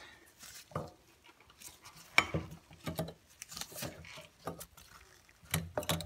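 Irregular light metal clicks and scrapes as a new rear brake pad is worked into the caliper bracket and against its spring clips, a little louder about two seconds in and near the end.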